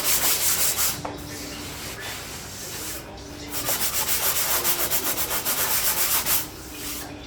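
Sanding a dried joint-compound (drywall mud) repair to smooth its edges: a quick run of rasping back-and-forth strokes, a quieter pause, then another long run of strokes about three seconds in.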